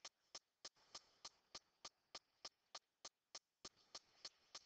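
Faint, evenly spaced ticking, about three ticks a second, keeping a steady rhythm throughout.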